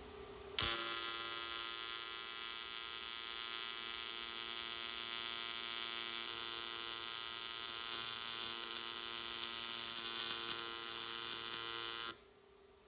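Aluminium welding arc, typical of AC TIG, buzzing steadily while the aluminium sensor bung is welded into the pipe. It starts abruptly about half a second in and cuts off sharply near the end.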